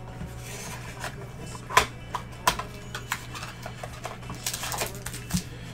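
Crinkling and crackling of a trading-card pack wrapper being torn open and handled: irregular sharp crackles and clicks, the loudest about two seconds in, with a quick cluster of crackles near the end.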